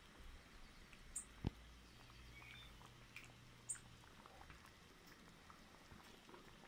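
Near silence: quiet room tone with a faint low hum and a few short, sharp clicks.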